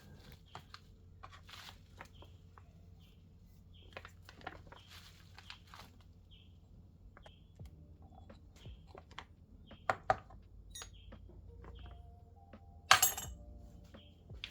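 Light metallic clinks and taps of small steel engine parts being handled and fitted together on a bench, with one louder clatter near the end.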